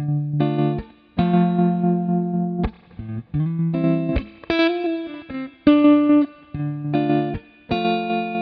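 Electric guitar, a Telecaster-style, played through an EarthQuaker Devices Hummingbird repeat-percussion tremolo pedal into a Fender Deluxe amp: a riff of chords and short phrases, each cut off sharply.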